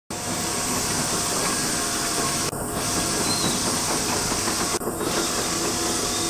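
Roller shutter running with an abnormal noise: a loud, steady hissing rattle, briefly dipping twice.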